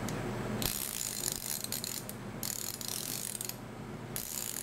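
Ratcheting combination spanner being worked back and forth, its fine-toothed ratchet giving rapid, closely spaced clicks in three runs.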